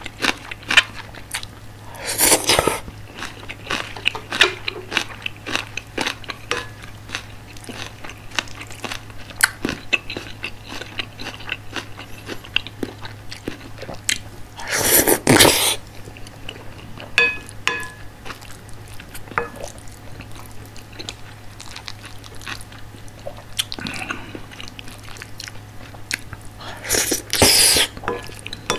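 Close-miked chewing of curry rice and kimchi: wet mouth clicks and crunching run throughout, with three louder bursts of mouth noise, about two seconds in, around the middle, and near the end.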